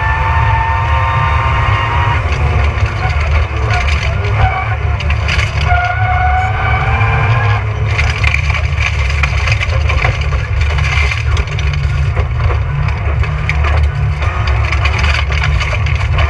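Rally car at speed on a gravel special stage, heard from inside: a loud, constant rumble from engine and road, with stones clattering against the underside throughout and a faint whine rising and falling in the first half.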